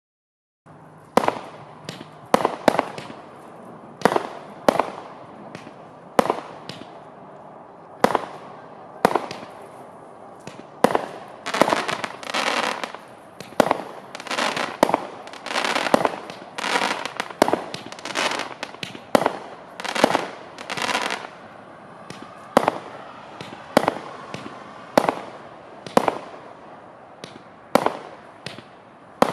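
A 192-shot, 20 mm fireworks cake firing in sequence: sharp bangs about one to two a second, each trailing off briefly, packed closer together through the middle. It starts just under a second in.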